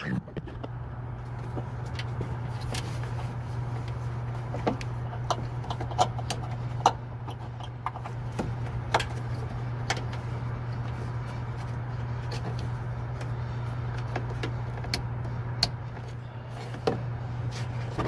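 Scattered clicks and knocks of plastic wiring connectors being handled and plugged together: an LED headlight bulb's lead going into the truck's headlight harness plug. A steady low hum runs underneath.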